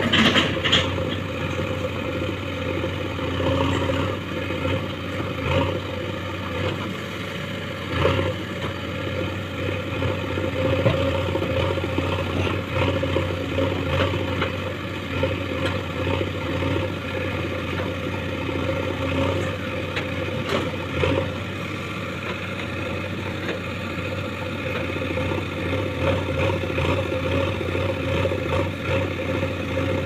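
JCB 3DX backhoe loader's diesel engine running steadily under load while the rear backhoe digs, with a few sharp knocks along the way.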